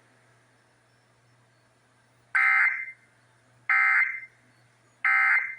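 Emergency Alert System end-of-message (EOM) code: three short bursts of digital data tones, about a second and a half apart, signalling the end of the alert message.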